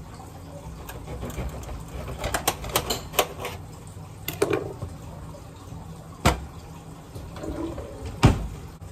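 Lemon halves squeezed by hand, juice dripping into a glass mixing bowl of beaten egg and milk, with scattered light clicks and two sharp knocks, one about six seconds in and a louder one near the end.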